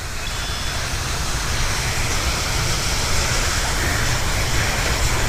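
Wind buffeting the phone's microphone: a steady low rushing noise that swells slightly.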